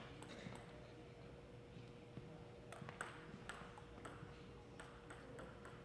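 Faint, scattered light clicks of a table tennis ball bouncing, with a quicker run of about four near the end, over a faint steady hum.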